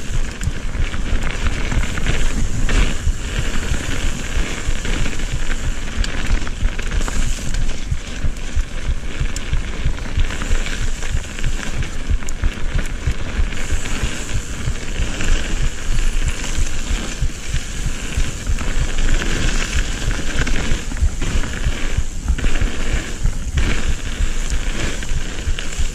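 Mountain bike ridden fast down a dirt forest singletrack, heard through the rider's action camera: a continuous crackle of the tyres over the trail and rattling over bumps, with a heavy low rumble of wind on the microphone.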